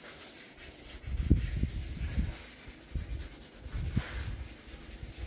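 Hand wet-sanding of a car fender with 800-grit wet-and-dry paper on a sanding block: a steady hiss of paper rubbing over the paint. A few dull low bumps come through, the loudest about a second in.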